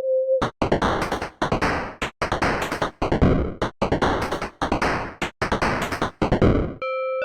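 Electronic sound clips: a plain beeping tone cut off just after the start, then a run of loud, harsh noise bursts chopped into about a dozen pieces, and near the end a bright synthesized melody of single notes stepping upward.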